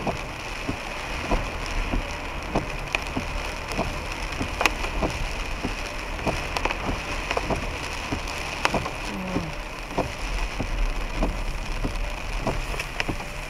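Heavy rain on a moving car, heard from inside: a steady hiss of rain with many scattered sharp drop impacts on the roof and windscreen, over a steady low rumble of the car on the wet road.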